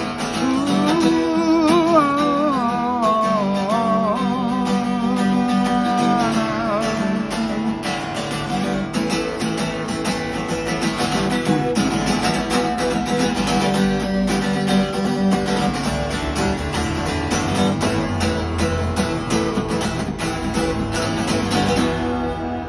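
Acoustic guitar strummed steadily, with a wavering melody line held over the chords for the first seven seconds or so, then the guitar alone; it eases off near the end.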